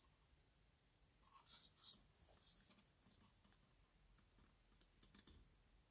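Faint scraping, then scattered small clicks: a tool working at a speaker's tweeter to pry it out of the cabinet.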